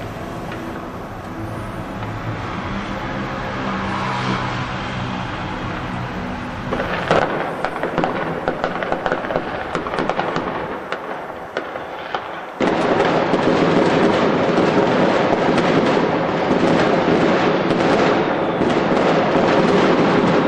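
Taipei 101 skyscraper fireworks show starting up. A steady background din, then scattered sharp bangs and crackles from about a third of the way in. About two-thirds through, the sound jumps suddenly to a dense, continuous barrage of crackling and bangs as the whole tower erupts.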